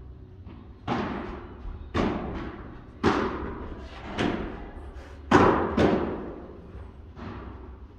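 Padel rally: the ball struck by padel rackets and bouncing off the court and glass walls, about eight sharp hits at uneven intervals, each echoing in the hall, with the loudest pair a little past halfway.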